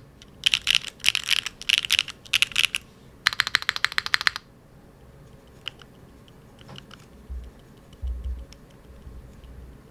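Typing on a Neo 70 mechanical keyboard fitted with factory-lubed HMX Pink Pig linear switches. There are several quick bursts of keystrokes and a fast run at about three to four seconds, then sparse, fainter single key presses with a few low thuds in the second half.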